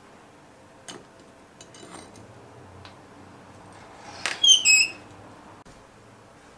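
A light clink about a second in, then about four seconds in the homemade gas-cylinder forge's hinged steel door knocks and squeaks shut in a few short squeals that step down in pitch.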